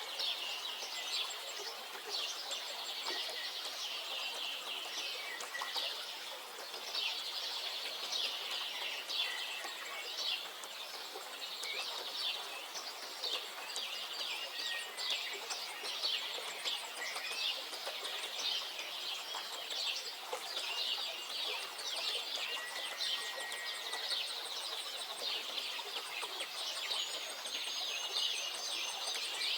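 Many songbirds chirping and singing at once, quick overlapping calls with a few short whistled notes, over a steady background hiss.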